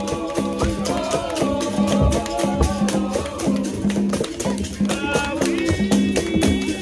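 Capoeira roda music played live: a berimbau's twanging tone over a steady rhythm of hand percussion and shaker, with voices singing.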